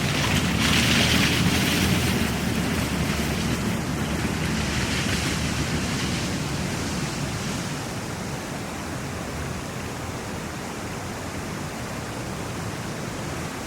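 Waterfall: a steady rush of falling water that slowly eases a little in loudness.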